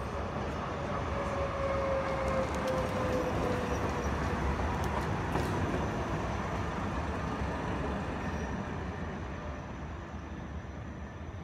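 Electric street tram passing close by on its rails: a rumble of steel wheels on track that swells as it goes by and fades after about eight seconds, with a whine falling slowly in pitch over the first few seconds.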